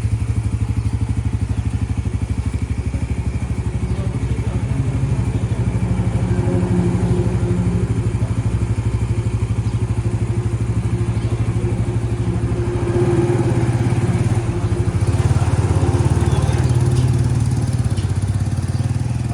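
Motorcycle engine running with a steady, rapid pulsing, getting louder about two-thirds of the way through as it pulls harder.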